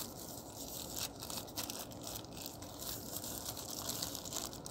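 Thin plastic bag crinkling as it is peeled off a light bulb by hand, an irregular high-pitched crackle throughout.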